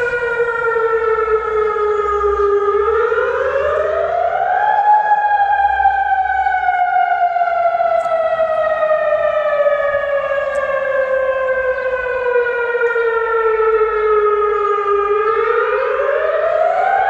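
Civil defence warning siren wailing: its pitch climbs over about two seconds, then sinks slowly for about ten seconds before climbing again near the end.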